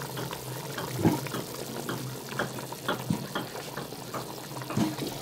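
Water at a rolling boil in a cooking pot, bubbling with scattered pops and splashes over a steady low hum.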